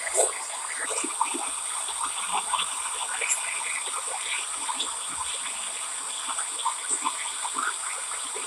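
Soldering torch flame hissing steadily against copper pipe, with many small irregular crackles as the flux sizzles on the heated joint.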